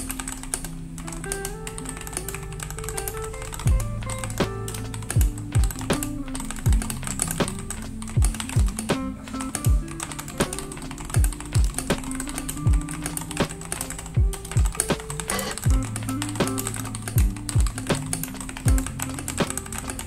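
Continuous typing on a Royal Kludge RK84 mechanical keyboard fitted with Feker Panda switches and XDA keycaps, a quick run of keystroke clicks, mixed with lofi background music whose deep beat thumps are the loudest sounds from a few seconds in.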